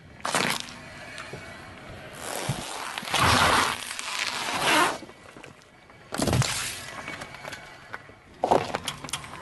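A car tyre rolling over and crushing small objects on asphalt, among them a yellow pepper and a toy ball. A sharp crunch comes near the start, a longer noisy crushing stretch of about three seconds follows in the middle, another crunch comes around six seconds in, and a quick run of small cracks comes near the end.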